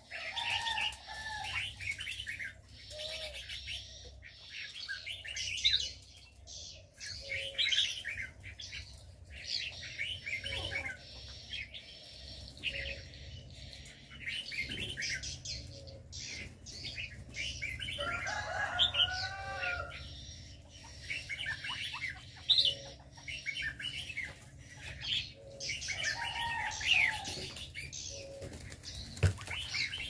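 Aviary birds calling: small birds chirp and twitter almost without a break, and doves coo low now and then, louder about a third of the way in and again near the end.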